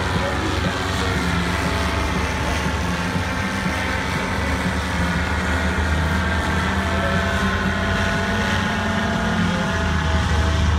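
Several paramotors (powered paragliders) droning overhead, their engines and propellers running steadily, with pitches that slide up and down as they manoeuvre.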